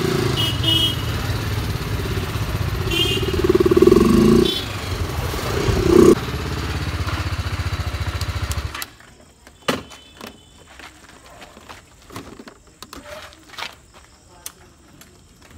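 Motorcycle engine running in traffic, with short horn blasts sounding a few times. About nine seconds in the engine stops abruptly, leaving scattered clicks and knocks as the bike is parked.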